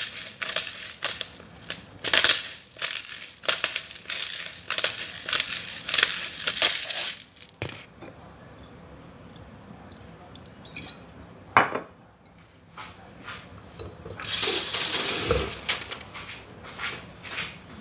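Pepper grinder being worked over a bowl of raw chicken: quick runs of gritty crunching clicks as the peppercorns are cracked, for about the first seven seconds. After a quieter stretch, a brief hiss comes about fourteen seconds in, and a few more clicks near the end.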